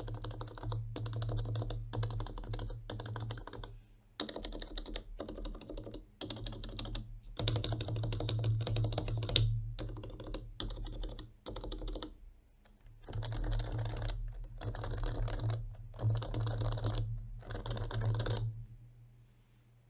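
Typing on an HHKB Professional Classic keyboard with Topre electrostatic capacitive switches lubed with Krytox 205G0. The keys go down in quick runs broken by short pauses, and the typing stops shortly before the end.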